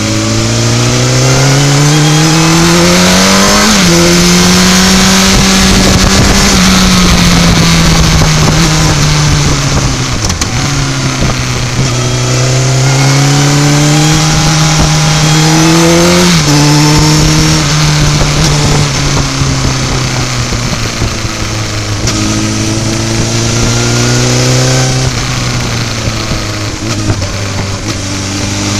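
Sport motorcycle engine heard from on board, accelerating through the gears. The revs climb and drop sharply at an upshift about four seconds in, sag, climb again to a second upshift around sixteen seconds in, then build again near the end, over steady wind rush.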